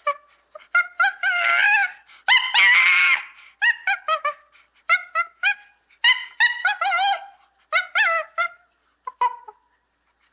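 Waterfowl calling: many short honking calls in quick succession, with two longer, wavering calls about one and two and a half seconds in.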